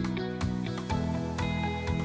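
Instrumental background music: plucked notes over sustained chords, on a steady beat of about two notes a second.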